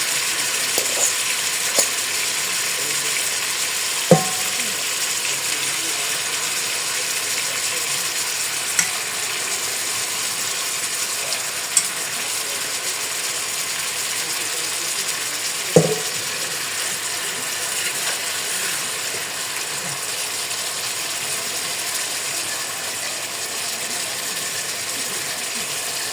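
Chicken leg quarters frying in butter and oil in a pot, a steady sizzle as the chicken browns and renders its fat. A few sharp knocks, the loudest about 4 and 16 seconds in.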